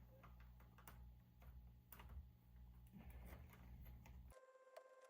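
Near silence: faint, scattered light clicks of small RC hub parts being handled over a low steady hum. About four seconds in, the background hum cuts off abruptly.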